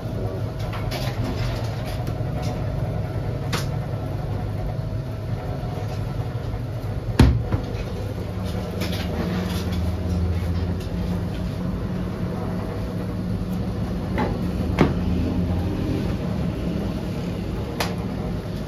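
Steady low hum of bakery equipment, with a few sharp knocks and clatters; the loudest knock comes about seven seconds in.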